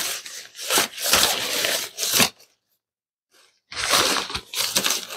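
Folded camping cot being pushed into its fabric carry bag: the bag rustles and scrapes in two bursts with a pause between, with a few dull knocks from the cot frame.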